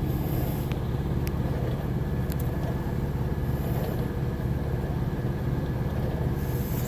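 Steady low drone of a semi truck's diesel engine heard inside the cab, with a few faint clicks.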